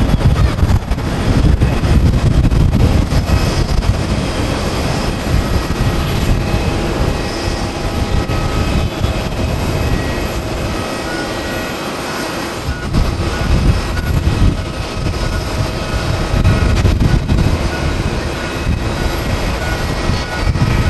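Boeing 767-300 airliner's twin jet engines at takeoff climb power, a loud low rumble that swells and fades unevenly as the plane climbs away.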